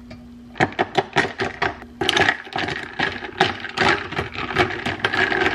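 Ice cubes clinking against the inside of a glass bottle as an iced latte is stirred. The sharp clinks start about half a second in and come several a second from about two seconds in. A low steady hum is also there for the first two seconds.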